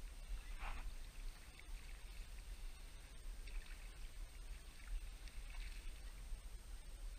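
Water splashing as a hooked silver Prussian carp thrashes at the surface and is scooped into a landing net: a sharp splash about a second in, then more splashing around four seconds in and again a little later, over a low steady rumble.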